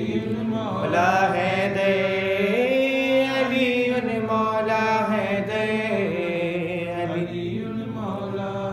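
Solo male voice chanting a Urdu marsiya (mourning elegy) in long, held, gliding notes without clear words, stretching out the melody between sung lines.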